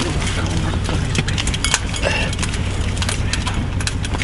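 Scattered sharp clicks and knocks of fishing gear being handled on the ice, over a steady low hum.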